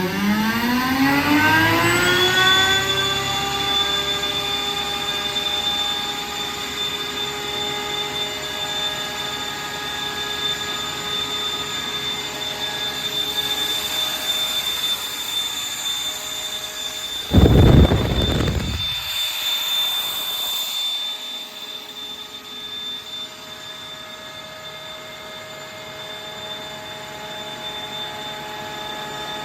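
22 kW Grassair RollAir screw air compressor starting: its motor and screw element spin up with a rising whine over the first two seconds, then run with a steady high whine. About seventeen seconds in there is a short loud rush of noise, after which the machine runs a little quieter.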